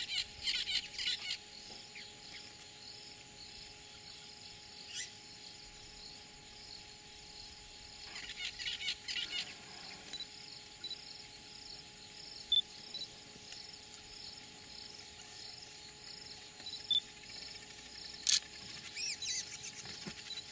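Weaver birds chattering in short bursts, twice, over a steady pulsing insect chorus of about two pulses a second, with a few single sharp chirps near the end.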